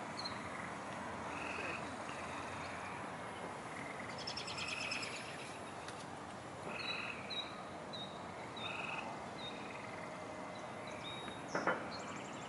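Faint evening outdoor chorus of wildlife: short chirps and calls repeating every few seconds, with a fast high trill about four seconds in, over a steady background hiss. Two faint clicks come near the end.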